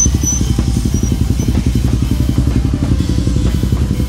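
A nearby engine idling steadily, with a rapid, even, low pulse.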